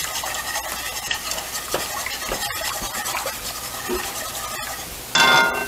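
A utensil stirring a thickening flour-and-chicken-broth sauce in a cast iron skillet, scraping softly along the pan bottom to keep it from sticking. A brief louder sound comes near the end.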